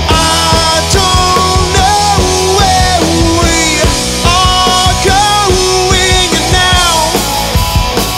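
Live rock band playing: a male lead vocalist sings long held notes that slide between pitches, over a drum kit, bass guitar and electric guitar.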